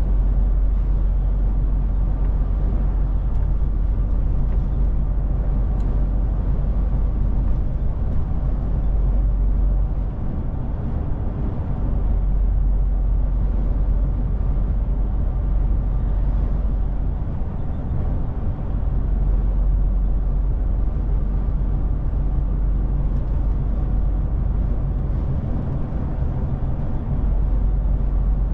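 Inside a DAF truck cab at cruising speed: the diesel engine's steady drone mixed with tyre and road noise. The low rumble eases briefly about ten seconds in and again a little past the middle.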